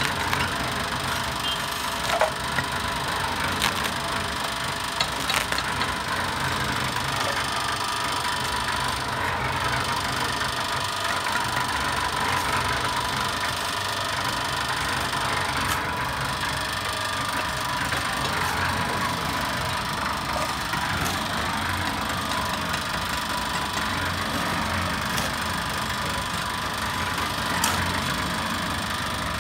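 Small electric concrete mixer running, its drum turning with wet mortar inside: a steady gritty churning over a motor hum and whine. A few sharp knocks in the first several seconds.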